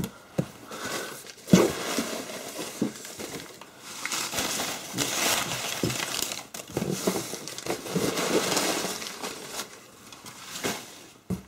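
Newspaper packing crumpled and rustled as it is pulled out of a cardboard box, with a sharp knock about a second and a half in.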